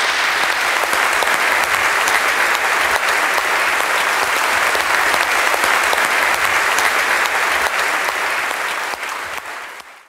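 Large audience applauding, dense steady clapping that fades over the last second and then cuts off.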